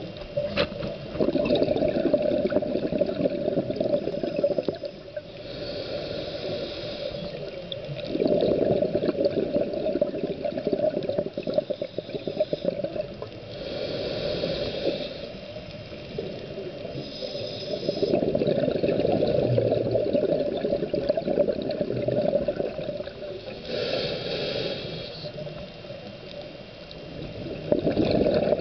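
Scuba diver breathing through a regulator underwater: a short hissing inhale, then a long bubbling exhale, repeating slowly at about one breath every ten seconds.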